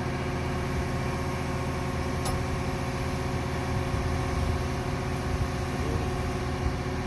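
Engine of heavy construction equipment running steadily at a constant speed, a low rumble with an even drone.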